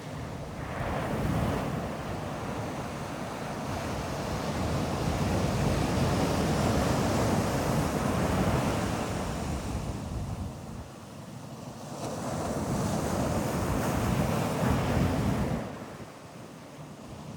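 Ocean surf breaking and washing up a beach in long surges that swell and fall away: one from about a second in to about ten seconds, another from about twelve to fifteen seconds that drops off quickly.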